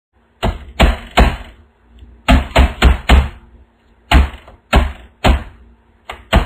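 Loud knocking in quick clusters: three knocks, then four, then three, with a faster run starting near the end.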